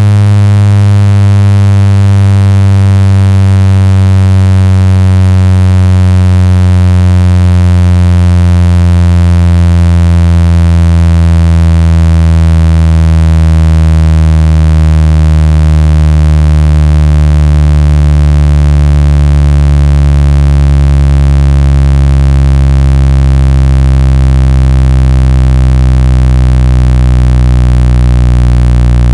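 Synthetic speaker-cleaning tone: a loud, steady low buzz built of many stacked tones, all slowly falling in pitch. It is meant to be played at full volume so that the vibration of a phone or speaker membrane shakes out trapped water and dust.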